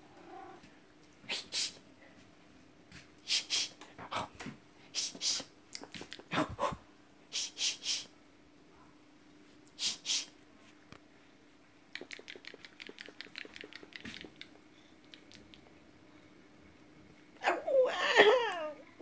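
Short sniffing or breathing puffs, mostly in pairs, a quick run of faint clicks, then near the end a domestic cat's wavering meow, about a second long and the loudest sound here.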